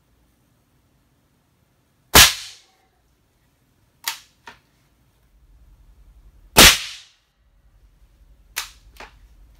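Two shots from a SilencerCo Maxim 50, an integrally suppressed .50-calibre muzzleloader, about four and a half seconds apart. Each is a short, sharp report with a brief fading tail. About two seconds after each shot comes a pair of much fainter clicks.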